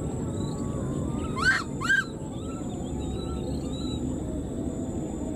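Newborn baby monkey giving two short, high-pitched calls half a second apart, each rising then falling: an infant left behind, calling for its mother.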